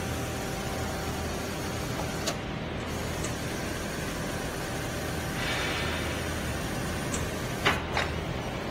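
Steady low hum of a hydraulic brake-pad hot press running, with a stretch of hiss about halfway through. A sharp click comes about two seconds in, and two knocks come near the end.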